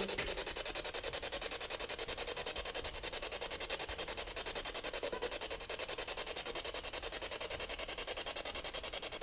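Steady, fairly faint static hiss from a ghost-hunting listening device, pulsing quickly and evenly. It is left running so that spirit voices can be heard answering.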